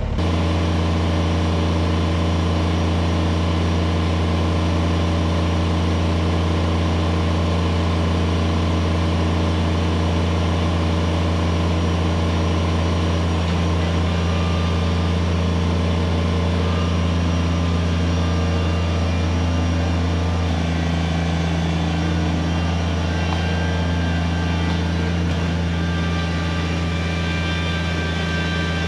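Kubota BX23S subcompact tractor's three-cylinder diesel engine running steadily as the tractor pulls a fallen tree out of the pond on a tow rope. Its pitch shifts slightly about two-thirds of the way through.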